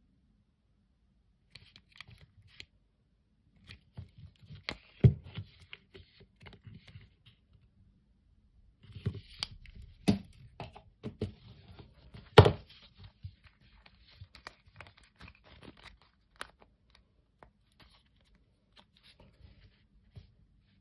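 Handling noise from a wide leather watch strap with a metal buckle: rustling and rubbing with scattered clicks and knocks, the two loudest knocks about five and twelve seconds in.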